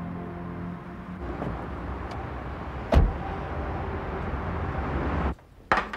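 A car door shuts with a single loud thud about three seconds in, over a steady low rumble. Soundtrack music fades out in the first second, and the sound cuts off abruptly near the end.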